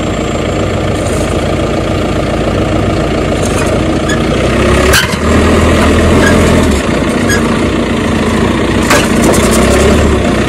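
Farm tractor's diesel engine running under load as its front-loader rock bucket digs a large stone out of the soil, the low engine drone strengthening midway. Two sharp knocks, about halfway and near the end.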